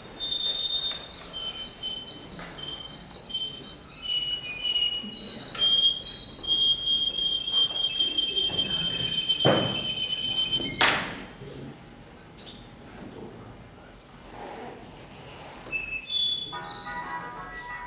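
Male canary singing: a song of long, steady whistled notes and trills that step up and down in pitch, rising higher in the second half and ending in a rapid rattling trill, with a short lull a little after halfway. Two sharp knocks come about halfway through.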